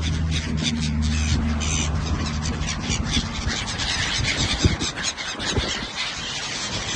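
Seagulls calling, many overlapping calls in a dense, continuous chorus. A low steady hum lies under the calls for the first few seconds, and two brief low thumps come about two-thirds of the way through.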